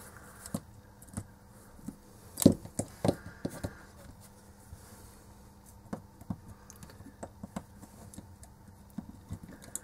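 Scattered small clicks and taps of pliers and LED lamp parts being handled on a work mat, with one louder knock about two and a half seconds in.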